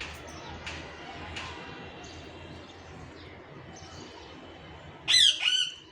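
A caged parakeet gives two loud, harsh squawks in quick succession near the end, over a background of faint bird chirps and murmur.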